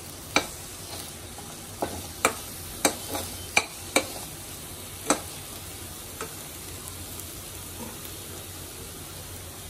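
A steel spoon stirring spice powders into thick green masala paste in a stainless steel pan, clinking sharply against the pan about seven times in the first five seconds, over a steady low hiss.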